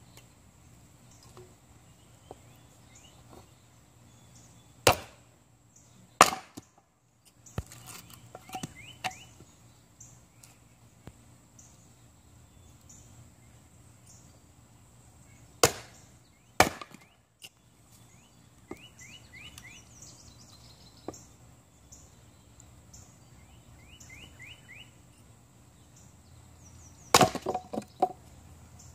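Axe chopping kindling on a wooden chopping block: sharp, separate chops, two pairs about a second apart, then a quick run of strikes near the end.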